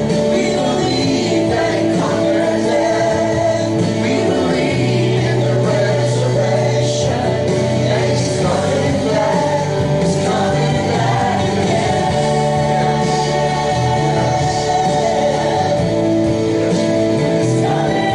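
Worship band playing a song with voices singing together, a steady bass line under sustained chords and cymbal strokes.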